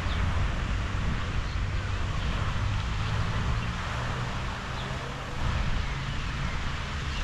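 Steady hiss of a fountain jet's water falling back onto a lake, with a low wind rumble on the microphone.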